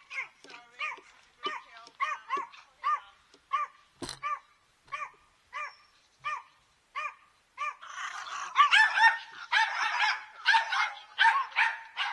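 A dog yapping repeatedly in short, high yaps, about two a second; about eight seconds in it breaks into a louder flurry of overlapping barks.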